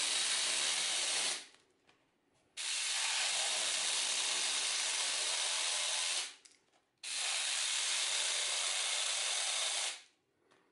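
Homemade miniature chainsaw knife running, its small chain sawing through a bread roll with a steady, high whirring noise. It runs in three spells of a few seconds with short pauses between, each starting and stopping abruptly.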